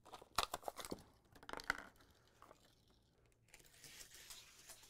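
Plastic blister pack crinkling and its cardboard backing tearing as a Hot Wheels car package is peeled open by hand, a burst of sharp crackles over the first two seconds. A faint steady hiss follows near the end.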